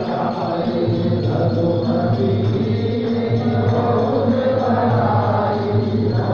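Devotional music with voices chanting together, going on steadily.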